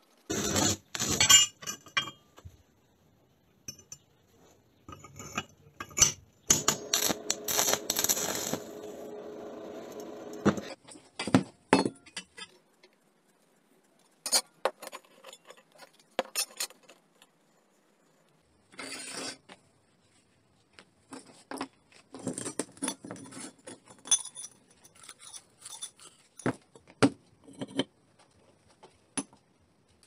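Steel workshop parts clinking, knocking and scraping as they are handled and set down on a wooden workbench: a pipe clamp with its bolt, a steel pipe and a welded plate socket. The sounds come in short clusters with pauses, and a steadier sound lasts a few seconds about a quarter of the way in.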